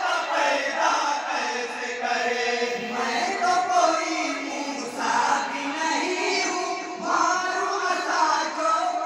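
A group of men singing an Islamic devotional kalam (naat) together into a microphone, their voices continuous with long held, wavering notes.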